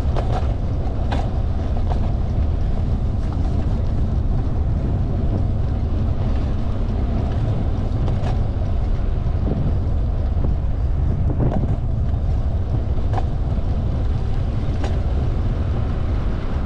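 Steady low rush of wind on the microphone of a camera riding on a moving bicycle, with a few faint clicks scattered through it.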